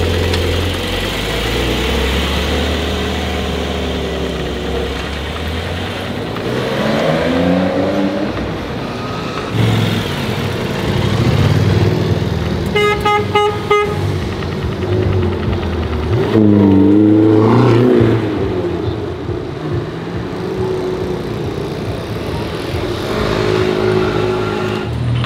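Sports car engines in city street traffic: a low steady engine rumble from a Porsche 911 convertible moving off, then engine notes rising and falling as a McLaren GT pulls away. About thirteen seconds in there is a brief, rapidly repeated horn-like tone.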